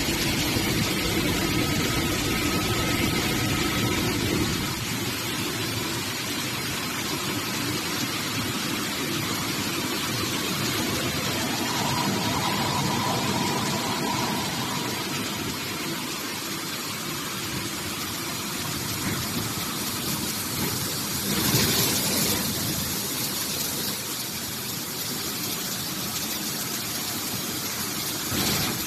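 Steady mechanical noise of an artificial rice extrusion production line running: motors, blowers and the extruder together, a dense hiss with a low rumble that eases after the first few seconds. A brief louder rush comes about two-thirds of the way through.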